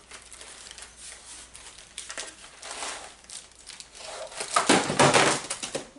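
Packaging crinkling and rustling as an item is handled and pulled out of its wrapping, in uneven bursts that get loudest about two thirds of the way through.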